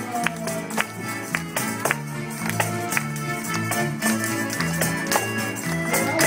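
Small folk ensemble of guitar, vihuela and accordion playing a melody in 2/4, with a tambourine struck in time over held accordion-like notes.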